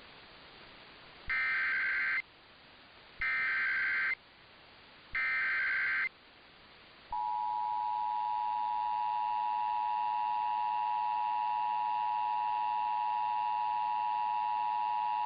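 Emergency Alert System tones for a severe thunderstorm warning: three bursts of about a second each of the SAME digital header's data screech, a second apart, then the steady two-tone attention signal starting about seven seconds in and held to the end.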